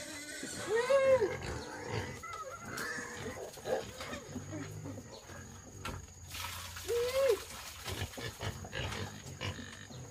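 An animal calling twice, about six seconds apart: each call is a short cry that rises and falls in pitch, with low rustling and knocking between.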